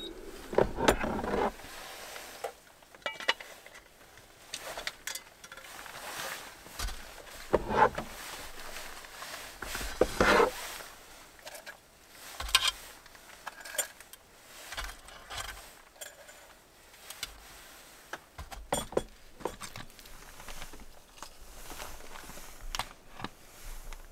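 Scattered clicks, clinks and knocks of handling an air fryer and its glass basket, with tongs picking up fried chicken pieces and setting them on a tray.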